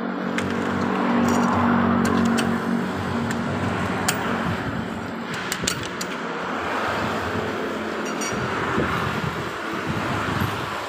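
Steady rumble and hiss of road traffic, with a few sharp metallic clicks of a cross wrench working the lug nuts on a car wheel.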